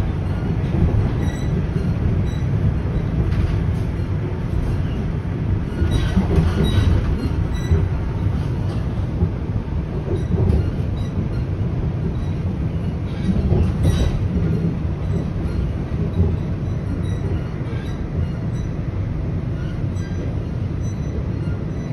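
Toronto Rocket subway train running at speed, heard from inside the car: a steady low rumble of wheels on rail, with a few sharp clicks along the way.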